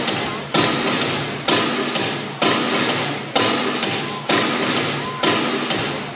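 Heavy percussive hits on the beat of the dance music, about one a second, each ringing out in the gym's echo.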